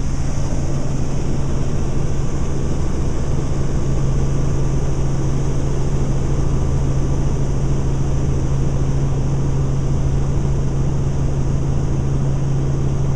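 Helicopter in steady flight heard from inside the cabin: a constant engine and rotor drone with a strong low hum.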